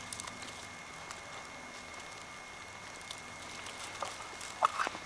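A few short, sharp clucks from a turkey box call near the end, meant to sound like a hen turkey.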